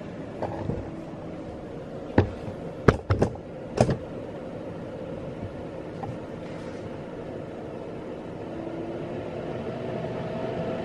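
Sharp FU-T51CX air purifier running, its fan giving a steady whir with a faint hum. A few sharp knocks sound between about two and four seconds in.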